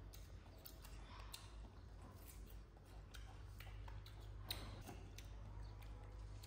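Faint, irregular light clicks and taps, one sharper about four and a half seconds in, over a low steady hum.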